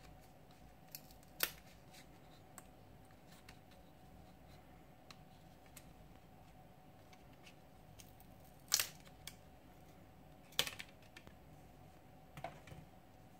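Plastic rear mid-frame of an Asus Zenfone 2 ZE550ML being pried off the phone, its clips clicking and snapping free. There are a few sharp clicks, the loudest about nine and ten and a half seconds in, with lighter ticks between.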